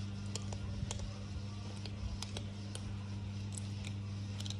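A cat chewing its food: irregular sharp clicks and crunches, about two a second, over a steady low hum.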